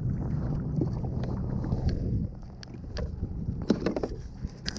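Wind rumbling on the microphone aboard a fishing kayak at sea, easing about two seconds in. After that come a few sharp clicks and knocks as gear on the kayak is handled.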